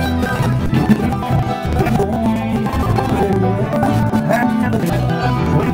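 Live bluegrass band playing, acoustic guitars, banjo and mandolin picking together at a steady, lively pace.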